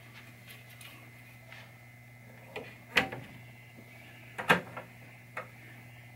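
A handful of sharp knocks and clicks as a pinball backglass is lifted out of its wooden backbox and handled, the loudest about three and four and a half seconds in, over a faint steady hum.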